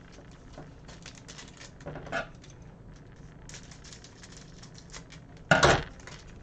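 Trading cards being handled at a desk: clusters of soft clicking and rustling, with a brief loud rustle or knock about five and a half seconds in.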